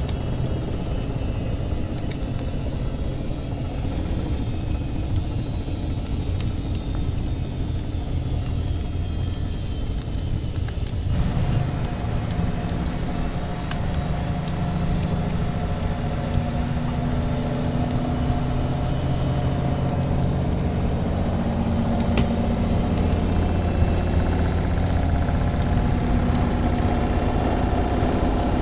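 Washing machine running with a steady low motor-and-drum hum whose tone shifts abruptly about eleven seconds in, with a few faint crackles from a wood fire.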